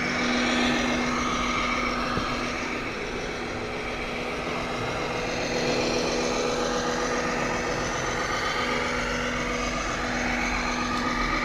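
Radio-controlled scale trucks and excavators running: a steady mechanical hum with a constant higher whine from their motors, hydraulics or engine-sound modules.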